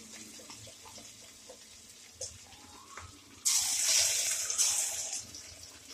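Balls of idli batter (punugulu) deep-frying in hot oil in a kadai: a soft, steady sizzle with small pops, then a loud burst of sizzling about three and a half seconds in as another ball of batter is dropped into the oil, dying down over the next two seconds.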